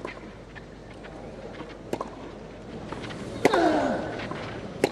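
Tennis ball struck back and forth with rackets in a clay-court baseline rally: four sharp hits about every one and a half to two seconds, with fainter ball bounces between them. A single vocal grunt, falling in pitch, follows the hit about three and a half seconds in.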